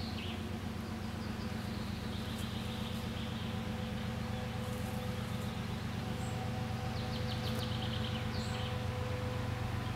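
2TE116UD diesel locomotive approaching at the head of a freight train, its engines a steady low drone that slowly grows louder. Birds chirp briefly twice, about two and a half seconds in and again near the end.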